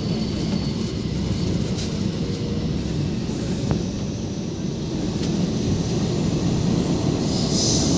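MTR K-Train (Hyundai Rotem EMU) running at speed through a tunnel, heard inside the carriage as a steady low rumble of wheels on rail and traction running gear. A higher hiss joins near the end as it gets slightly louder.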